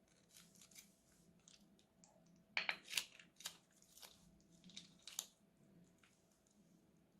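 Crunchy slime crackling and popping as it is squeezed and pressed: a run of sharp little crackles, loudest about two and a half to three and a half seconds in, then scattered pops until about five seconds in.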